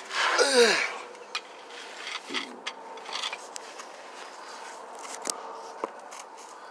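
Scattered light clicks and short scrapes of a hand tool working against metal under a truck's transmission. A short groan falls steeply in pitch near the start.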